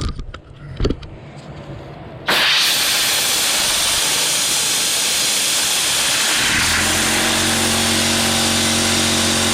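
Compressed-air blow gun hissing loudly as it blows oxidized paint residue out of a wool polishing pad, starting suddenly about two seconds in. About two thirds of the way through, a steady motor hum joins underneath the hiss.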